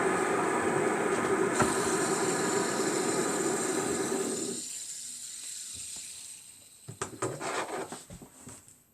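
Fidget spinners whirring steadily on their bearings, then dying away about halfway through; a few clicks and rattles of handling follow near the end.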